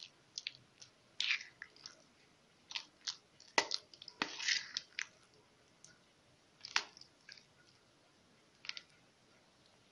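A metal spoon scooping and stirring thick boiled quince purée in a stainless steel bowl. It makes irregular wet squishes and scrapes, with a few sharper knocks of the spoon against the bowl.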